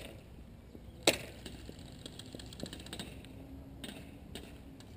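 One sharp, loud crack about a second in, with fainter scattered clicks around it: airsoft gunfire during a game.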